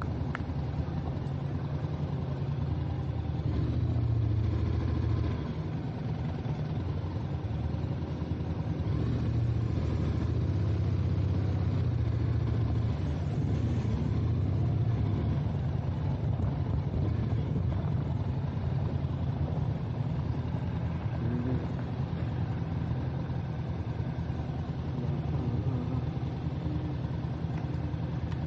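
Vehicle engine running at steady road speed, a low drone that swells slightly a few times as the throttle changes.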